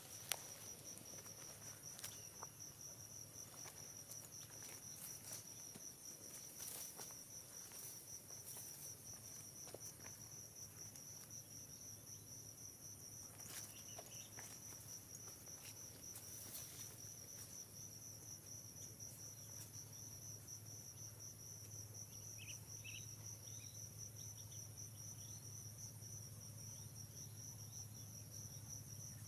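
Faint, steady high-pitched insect chirring, finely pulsing and unbroken, over a low hum. There are scattered faint clicks, and a few short high chirps about two-thirds of the way in.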